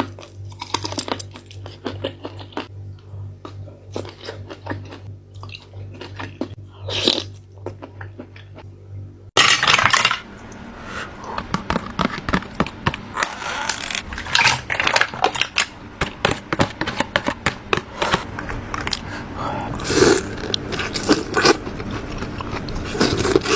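Close-up eating sounds from a seafood mukbang: chewing, crunching and biting. About nine seconds in, the sound changes abruptly to a louder, busier run of wet crunching.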